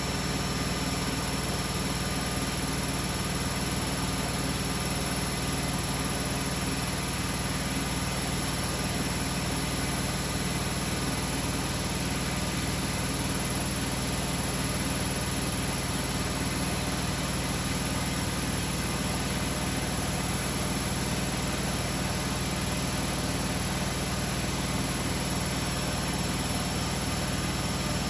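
Beko WML 51211 EL+ washing machine running steadily: a constant machine hum with fixed tones, no change in pitch or level.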